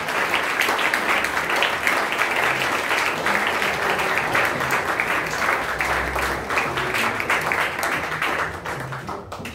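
Audience applauding, with the cast on stage clapping along: dense, steady clapping that thins out and fades near the end.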